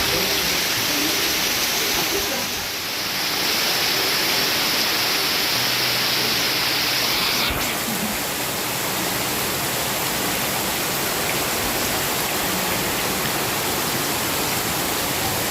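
Steady rain falling, heard as a loud, even hiss. The brighter top of the hiss drops away abruptly about halfway through.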